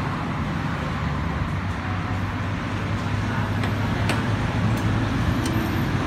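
Steady low background rumble, with a few light clinks of a metal spoon against ceramic condiment bowls between about three and five and a half seconds in.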